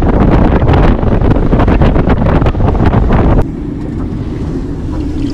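Strong wind, 22–23 knots, buffeting the microphone on a sailboat at sea in loud ragged gusts. About three seconds in it cuts to a quieter steady rushing with a faint low hum.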